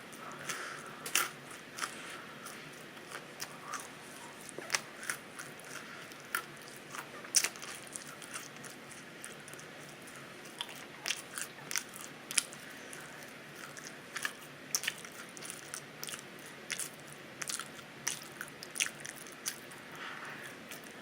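Open-mouthed chewing of burnt pizza: crisp crunches and sharp mouth clicks come at irregular intervals, a few much louder bites standing out.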